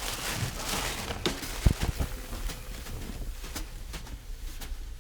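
Crackling, rustling handling noise like gift wrapping paper being torn and crumpled, loudest in the first two seconds, with a sharp knock a little under two seconds in.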